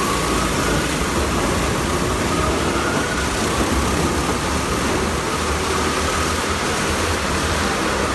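Motorcycles circling the vertical wooden wall of a Wall of Death drome, their engines running steadily at a constant throttle.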